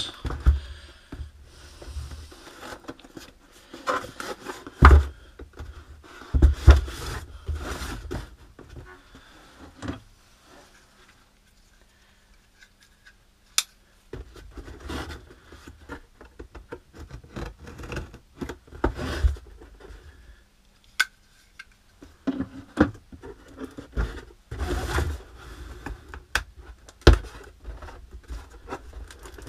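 Cardboard box being handled and turned over on a workbench: irregular rubbing and scraping of cardboard, with a few sharper knocks as it is set down, and a quieter stretch about a third of the way in.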